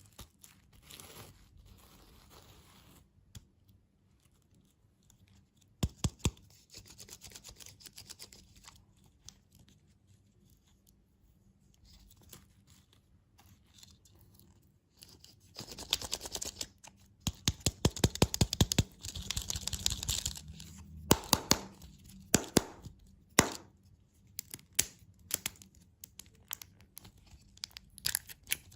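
Candy packaging being torn open and crinkled in crackling bursts with short pauses. The busiest stretch comes just past the middle.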